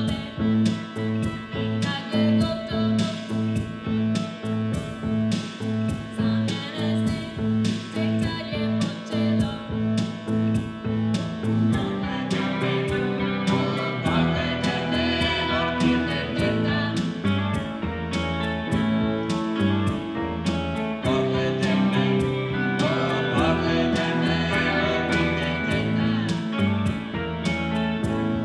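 Live rock band playing: electric guitars and keyboard over a steady beat. About twelve seconds in the music fills out and singing comes in.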